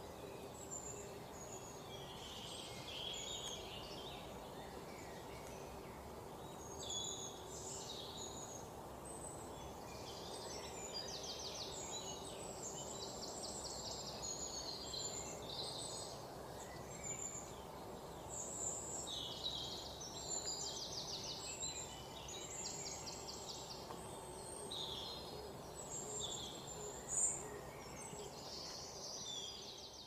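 Forest ambience: many small birds chirping and singing quick trills over a steady background hiss.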